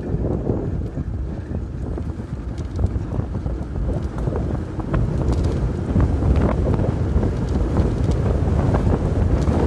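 Wind rushing over the microphone of an electric scooter accelerating at speed, with a low rumble and no audible motor whine. It grows louder about six seconds in as the speed climbs.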